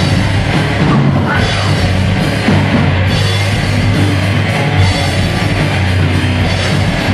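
Live rock band playing loud, with electric guitar, electric bass and drum kit.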